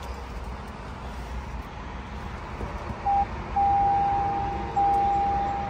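Electronic warning chime of a 2024 Toyota RAV4 plug-in hybrid: a single steady high tone that starts about three seconds in with a short beep, then sounds in long stretches broken by brief gaps. Before it there is only a low background rumble.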